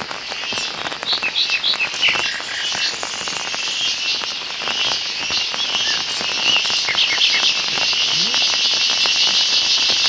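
Dense, steady, high-pitched chorus of forest insects, growing slightly louder, with a few short bird chirps about a second in and again around seven seconds.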